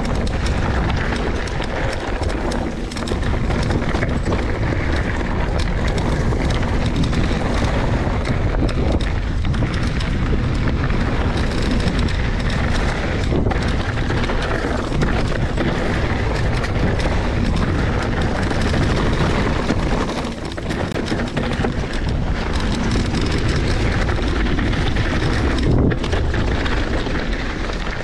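Trek Remedy 27.5 full-suspension mountain bike riding fast down dry dirt singletrack: steady tyre and trail noise with frequent knocks and rattles from the bike over bumps, under heavy wind rumble on the microphone.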